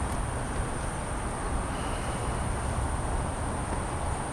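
Steady low rumble of distant city traffic with a continuous high-pitched insect trill over it.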